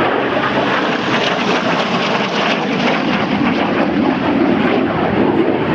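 Jet engines of an F/A-18 Hornet flying a display, a loud, steady rushing noise with no break.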